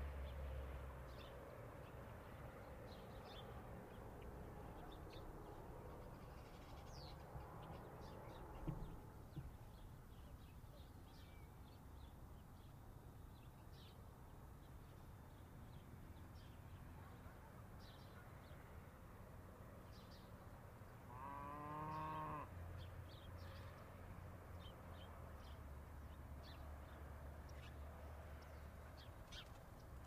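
Quiet countryside ambience: a steady low rumble with scattered faint high chirps, and one drawn-out animal call lasting about a second and a half around two-thirds of the way through. A couple of faint knocks sound about nine seconds in.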